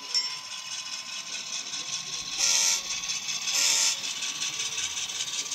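Sound decoder of an N scale ScaleTrains GE C39-8 model diesel locomotive playing engine running sound through its small onboard speaker. A bell rings once right at the start, and there are two short horn blasts about a second apart in the middle.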